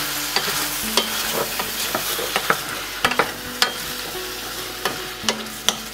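Chicken, tomato, olives and peas frying with a loud sizzle in a stainless steel saucepan while a wooden spoon stirs them, clicking against the pan again and again. The sizzle dies down a little toward the end as the stirring quiets it.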